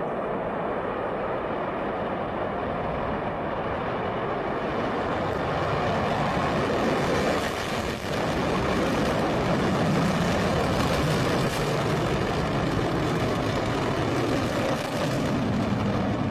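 Rocket exhaust roar: a continuous, noisy rumble that grows louder about five seconds in and dips briefly about eight seconds in.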